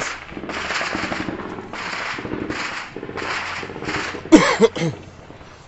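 Automatic gunfire in a long string of rapid bursts, shot after shot with short breaks between bursts, ending after about four seconds; a man's voice cuts in loudly right after.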